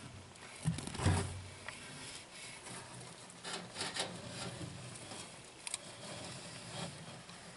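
Handling noises: rubbing and scraping with a few light knocks as a hand moves a branch and decor inside a glass reptile enclosure.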